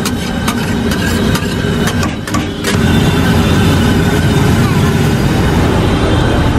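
Busy street ambience: a vehicle engine running and people's voices. Several sharp knocks sound in the first couple of seconds.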